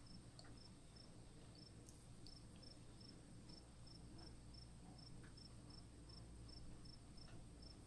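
Near silence: a faint steady hum, with a soft, high chirp repeating evenly about two and a half times a second and a few faint ticks.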